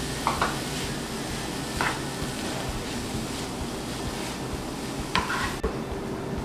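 Cauliflower fried rice frying in a pan, a steady sizzle with a few knocks of the stirring utensil against the pan.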